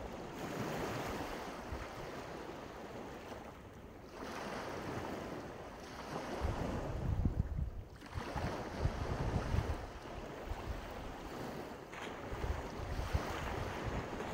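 Sea surf breaking on a beach, the rush of the waves swelling and falling back every few seconds, with gusts of wind buffeting the microphone.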